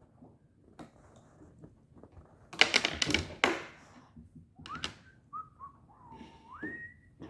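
A quick run of clicks and rattles, like small plastic toy parts being handled, about two and a half seconds in. Near the end comes a short whistle: a couple of brief notes, then a tone that rises in pitch.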